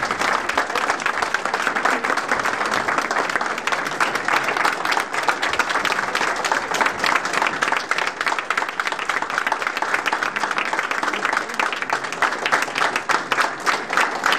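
Audience applauding: many hands clapping in a dense, steady stream with no break.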